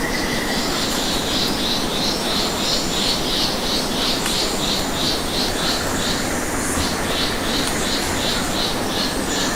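Night ambience in subtropical trees: a high chirp repeating about three times a second, with a short pause near the middle, over a steady hiss. A thin high tone carries on for the first half-second.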